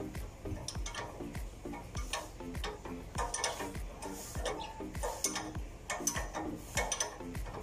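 Metal tools clicking and clinking on the front suspension as a stabilizer link is worked loose behind the brake rotor, over background music with a steady beat.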